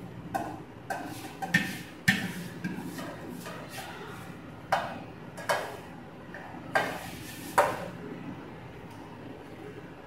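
Stainless steel bowl clinking and knocking against the counter as dough is kneaded in it by hand: about eight sharp metallic knocks at irregular intervals, each ringing briefly.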